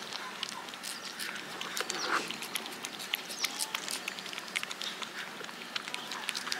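A tabby-and-white cat licking paste treat from the tip of a squeeze tube: rapid wet tongue-and-mouth clicks, several a second.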